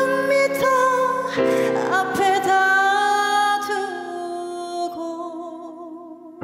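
A woman singing a slow Korean trot ballad in Korean, accompanying herself on keyboard; her held notes waver and the singing fades softer in the last couple of seconds.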